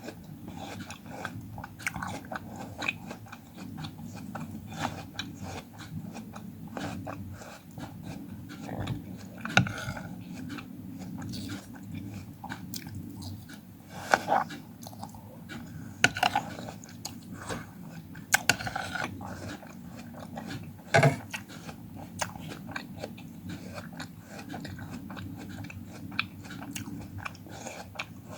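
Close-miked chewing and biting of fruit, a continuous run of mouth sounds with about five sharper bites or crunches standing out.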